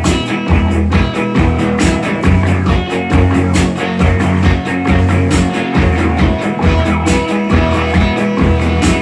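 Rock band playing live, electric guitar over a steady, evenly pulsing beat.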